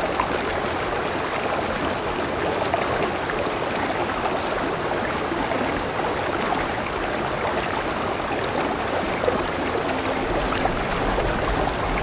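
Heavy rain falling steadily onto standing water, a continuous even splashing hiss.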